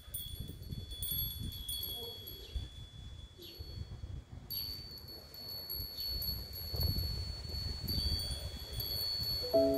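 Small metal chimes ringing with high, sustained tones that overlap, fade and are struck again, over a low rumble. Near the end, lower notes start up like a tune.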